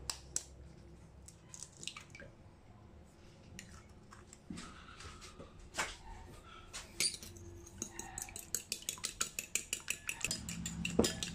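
Fork tapping an egg on the rim of a ceramic bowl to crack it, with a few sharp clicks. From about seven seconds in, the fork beats the egg in the bowl, a fast, even run of clinks several times a second against the ceramic.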